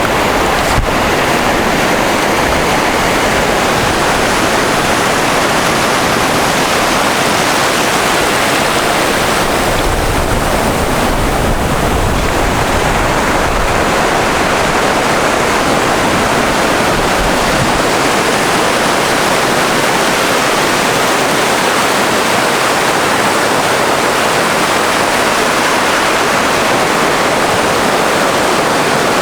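Loud, steady rushing of wind and sea water, with no distinct events.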